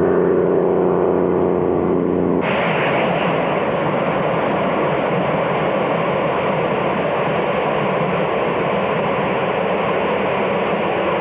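A running vehicle's steady engine hum. About two seconds in it gives way abruptly to a loud, steady rushing noise.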